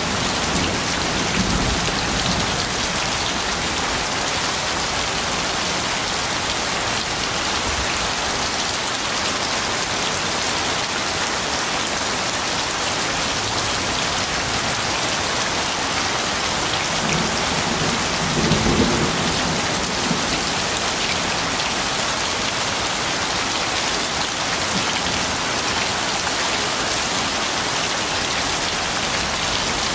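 Steady rain falling, with a low rumble of thunder a little past the middle.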